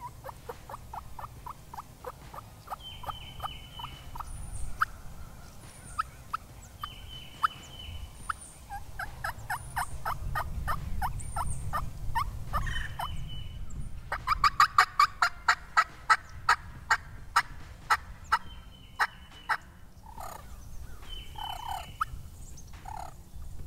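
Homemade 2.5-reed ghost-cut diaphragm turkey call blown in runs of hen-turkey yelps, a few notes a second. The loudest, fastest run comes a little past the middle, followed by a few softer single notes near the end.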